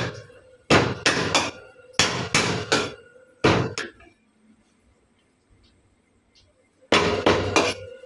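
Chinese cleaver chopping on a wooden chopping block: sharp chops in quick runs of two to four. There is a pause of about three seconds before the last run.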